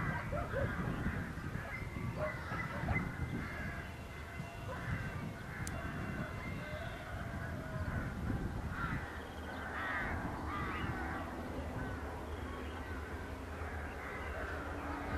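Birds calling over and over with short, chirpy calls, over a low, steady rumbling background.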